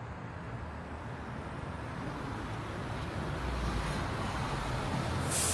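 Light road traffic: a vehicle approaching on the road, its engine rumble and tyre noise growing steadily louder, with a sudden rise in tyre hiss near the end as it comes close.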